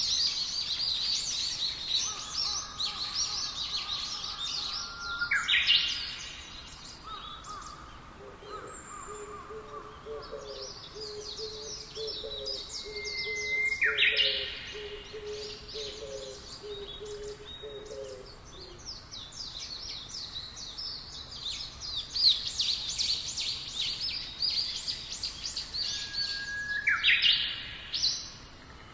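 Several forest songbirds chirping and trilling, with three loud calls that sweep upward in pitch. A low hooting call repeats steadily for about ten seconds in the middle.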